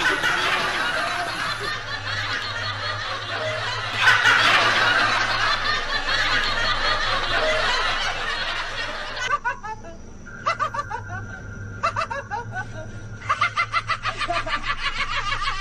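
Laughter: a loud, dense, jumbled stretch for the first nine seconds, then a rhythmic snicker in quick, evenly spaced bursts.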